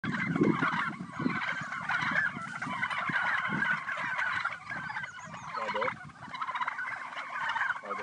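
A large flock of domestic turkeys gobbling together, many overlapping calls forming a continuous chorus.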